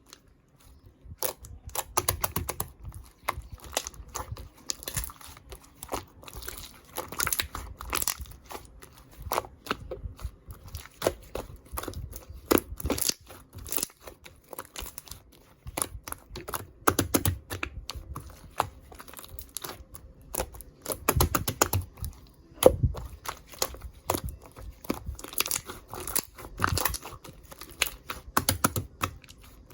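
Slime being squished and stretched by hand, an irregular run of sticky clicks, pops and crackles.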